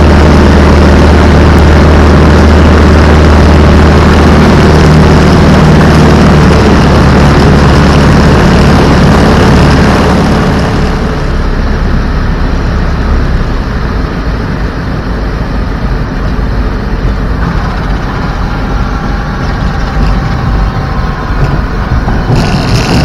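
Propeller aircraft's piston engine heard from inside the cockpit, a loud, steady drone. About ten seconds in the sound cuts to a quieter, lower-powered engine note.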